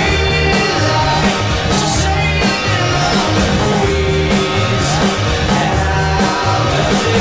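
Rock song with singing, guitar and a steady beat.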